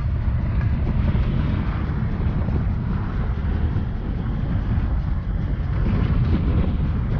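A vehicle driving on an unpaved dirt road: a steady low rumble of engine and tyres, with wind buffeting the outside-mounted microphone.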